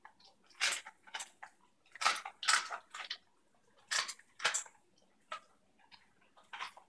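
German Shepherd dog eating, chewing and smacking its lips with wet, irregular clicks and squelches, about one to two a second.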